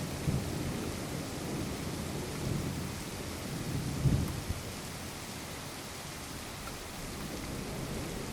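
Steady rain falling with thunder rumbling low and rolling, swelling louder just after the start and again about four seconds in.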